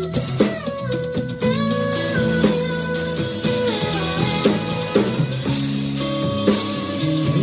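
Live rock band playing an instrumental passage: a lead electric guitar plays held notes that slide and bend in pitch, over bass guitar and a drum kit keeping a steady beat.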